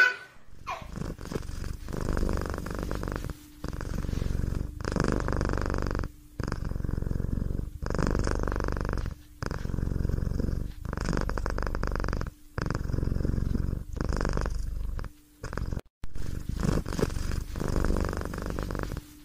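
Domestic cat purring close up: a steady low rumble that swells and dips in a regular rhythm, about once every second and a half.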